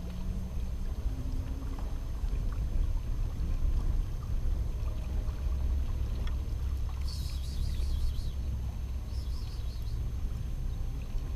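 Wind buffeting the microphone with a heavy low rumble, over water washing against shoreline rocks. A short, high-pitched rattle about seven seconds in, and a shorter one about nine seconds in.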